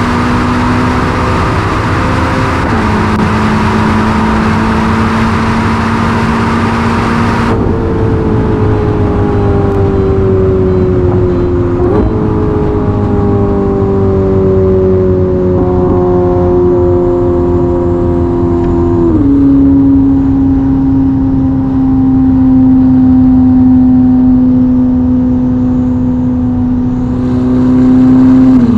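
Ferrari SF90's twin-turbo V8 with a Novitec sport exhaust, heard from the cabin at high autobahn speed: a steady drone whose pitch slowly sinks and then jumps abruptly several times as gears change. Loud wind and road rush sits over it until it drops away sharply about seven seconds in.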